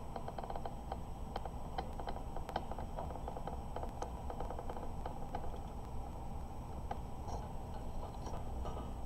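Quick light clicks and taps of hands handling a small HO scale model railroad car, thickest in the first half and again briefly near the end, over a low steady hum.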